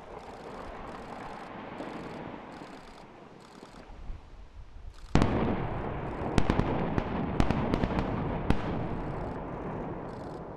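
Demolition explosives collapsing a mountainside tunnel entrance: a steady rumble of falling debris, then about five seconds in a sudden loud blast, followed by a run of sharp cracks over a long rumble of rock and dust pouring down the slope, which fades near the end.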